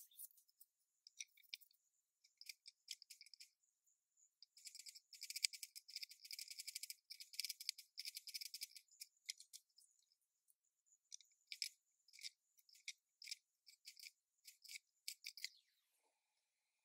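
Kitchen knife chopping vegetables on a wooden cutting board, faint: a fast run of taps about five to nine seconds in, then slower single cuts.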